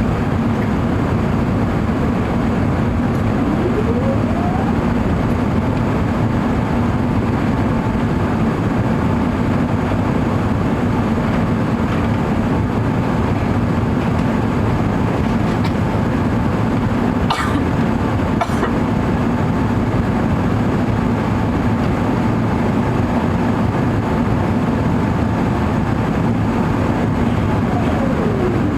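Steady roar of an Airbus A380's engines and airflow heard inside the passenger cabin. A faint tone rises about four seconds in, holds, and falls away near the end. Two sharp clicks come about a second apart past the middle.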